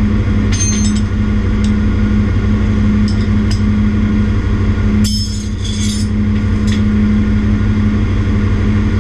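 Loud, steady drone of ship's engine-room machinery with a constant hum, heard from inside a large marine engine's casing. A few light metallic clinks sound over it, and there is a brief clatter about five seconds in.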